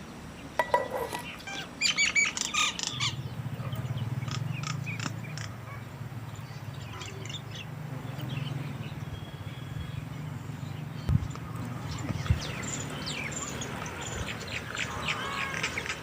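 Animal calls: bird-like squawks and chirps about a second in and again a second later. A low steady hum runs through the middle.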